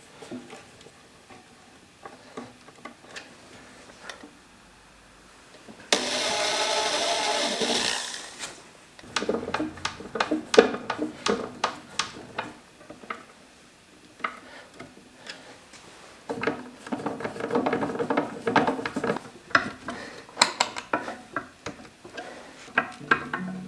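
A small electric power tool motor runs in short bursts: steady for about two seconds a quarter of the way in, then stop-start in the second half, with clicks and knocks of handling throughout.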